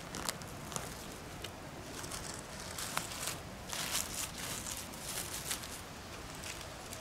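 Dry pine needles and twigs crackling and rustling on the forest floor: a few sharp snaps in the first seconds, then uneven bursts of crunchy rustling.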